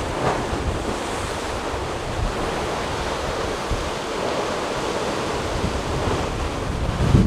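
Sea surf washing against a rocky shoreline, a steady rush of water, with wind on the microphone.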